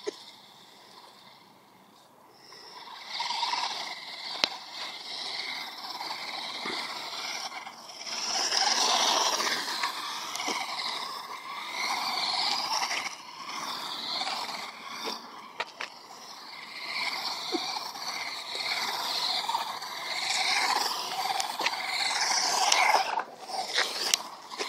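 Radio-controlled truck driving on asphalt, its motor and tyres swelling and fading as it speeds up, slows and turns. The sound comes in about two seconds in.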